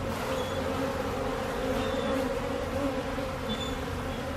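A swarm of honeybees buzzing: a steady drone of many bees, its pitch wavering slightly.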